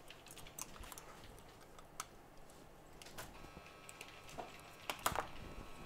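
Scattered faint clicks and taps of tweezers and an opened iPhone 7 Plus housing being handled on a workbench, the loudest a pair of clicks about five seconds in. A faint thin steady whine joins in about three seconds in.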